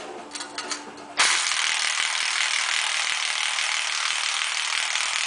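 Impact gun rattling steadily on a car's strut assembly, cutting in suddenly about a second in, used in place of a spring compressor.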